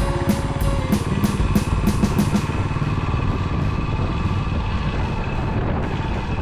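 Background music with a steady drum beat that drops out about two and a half seconds in, over the running engine of a Yamaha SR single-cylinder motorcycle being ridden.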